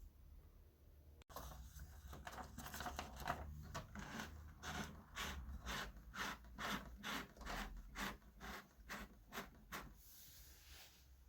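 Soft keys of a Canon Typestar 10-II electronic typewriter being typed on: a quick, uneven run of light clicks, about three a second. It starts about a second in and stops near the end.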